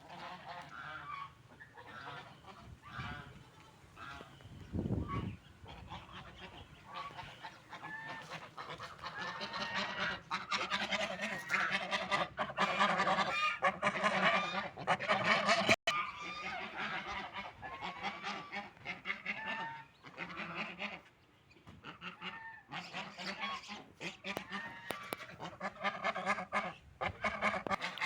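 Ducks calling, many short quacks overlapping in quick succession, growing busier and louder about ten seconds in.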